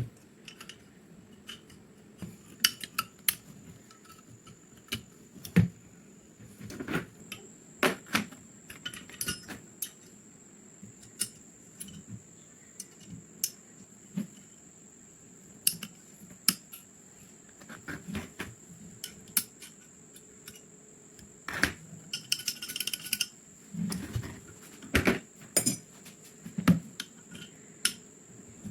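Small metal parts clinking and knocking irregularly as they are handled and set down on a hard surface, with a brief metallic ringing a little past twenty seconds in. A faint steady high whine runs underneath.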